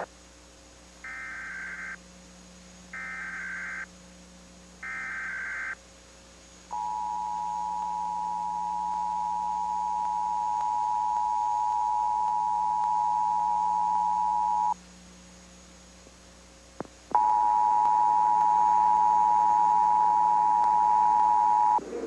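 Emergency Alert System signal for a Required Monthly Test: three short warbling digital header bursts, then the two-tone attention signal held steady for about eight seconds. After a short gap and a click, the two-tone attention signal sounds again for about five seconds.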